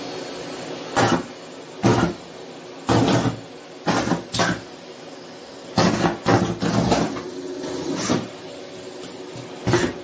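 Vacuum cleaner running with a steady hum, its bare hose end sucking up latex gloves; about ten sudden loud rustling surges come at uneven intervals as gloves are pulled into the hose.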